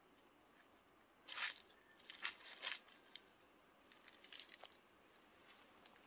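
Steady high-pitched chirring of crickets, with a few short, sharp rustling sounds, the loudest about one and a half seconds in and more up to about three seconds and around four seconds in.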